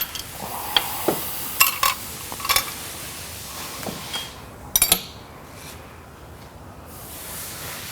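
Hand tools and metal parts clinking while working on a motorcycle: a scattering of sharp metallic clinks and taps, with a quick cluster of them about five seconds in.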